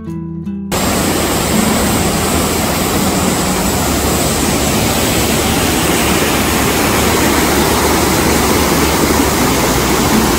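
Steady rushing roar of a waterfall, white water pouring over a rocky cascade into a pool, starting abruptly just under a second in.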